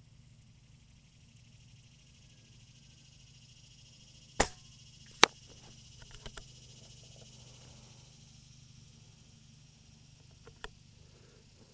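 A single shot from an FX Royale 500 .25 regulated PCP air rifle about four seconds in. A second sharp crack follows under a second later, then a quick run of lighter clicks as the side lever is worked to cycle the next pellet, and one more click near the end. Insects chirr steadily in the background.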